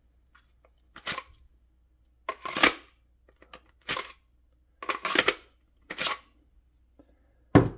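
Pistol being drawn out of and pushed back into a Safariland 578 GLS polymer holster: a run of sharp plastic clicks and short scrapes, about one a second, as the grip-locking latch releases and locks.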